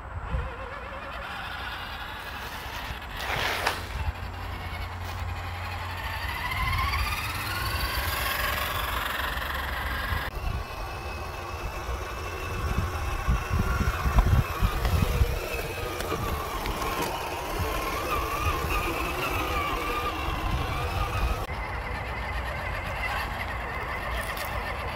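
1/10-scale RC crawlers' electric motors and gearboxes whining, rising with the throttle about halfway into the first part and then wavering as they drive, over a low rumble. The sound changes abruptly twice.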